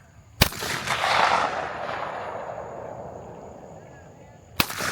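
Two shotgun shots at clay targets, about four seconds apart. The first report trails off over a second or so.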